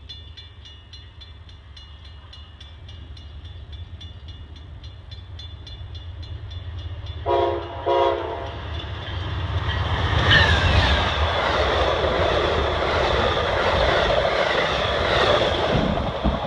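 A bell dinging about three times a second, then an Amtrak GE P42DC diesel locomotive sounds two short horn blasts, about a second apart, as it approaches. It passes close by from about ten seconds in: loud diesel engine rumble and rail noise, its bell still ringing.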